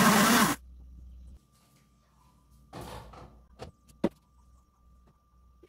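Countertop blender running on a milk mixture, switched off about half a second in, its motor humming briefly as it winds down. Then a rustle, a click and a sharp knock as the plastic blender jar and a jug are handled on the counter.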